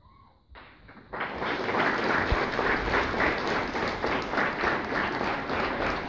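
Audience of schoolchildren and adults applauding, the clapping starting about a second in after a brief quiet and going on steadily.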